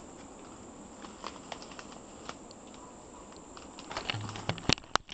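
Scattered light clicks and crackles over faint background hiss. Near the end comes camera handling noise: a brief low hum, then rubbing and two sharp loud knocks as the camera is moved.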